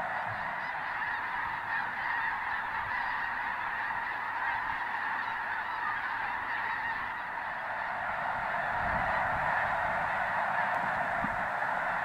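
A huge flock of snow geese calling all at once: a dense, steady din of countless overlapping honks.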